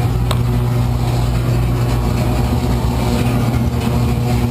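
A loud, steady low droning rumble, like an engine idling.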